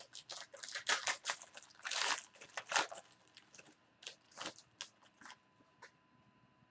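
A foil trading-card pack wrapper being torn open and crinkled by hand: a dense run of crackling and tearing rustles for about three seconds, then scattered lighter rustles that die away about five seconds in.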